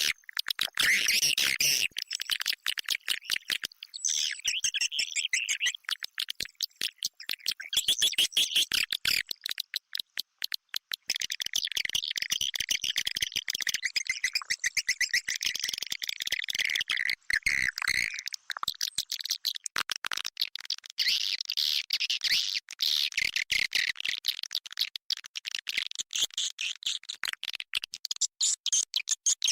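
Recorded swiftlet calls played as an external lure sound for a swiftlet house: dense, rapid chattering chirps and twitters that run on almost without a break.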